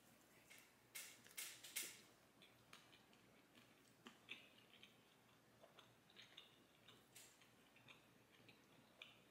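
Faint chewing of a crisp flatbread slice: a few sharp crunches in the first two seconds, then soft mouth clicks as he keeps chewing.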